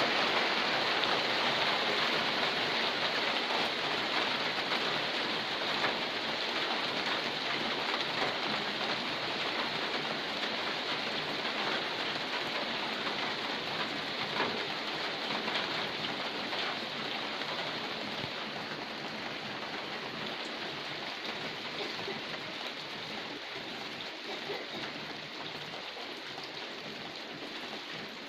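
Steady heavy rain falling and pattering on surfaces: a dense, even hiss with scattered drop ticks, slowly easing in level.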